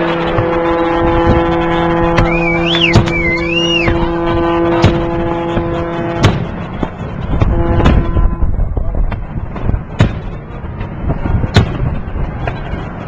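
New Year fireworks going off in repeated sharp bangs. A long, low horn blast sounds under them, stops about six seconds in and sounds again briefly a second later. A wavering high whistle comes in around two to four seconds in.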